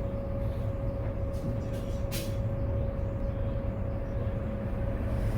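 Inside a city bus: steady low engine and road rumble with a constant whine, and one short hiss about two seconds in.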